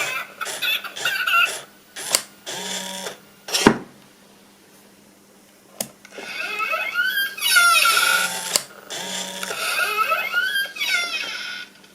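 Sound effects played through the useless box's small 3 W speaker: warbling sounds that glide up and down in pitch through the second half, after a few sharp clicks in the first half.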